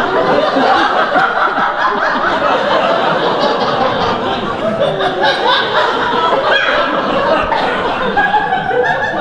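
Theatre audience laughing steadily, many voices at once, in a long sustained wave of laughter at a stage farce.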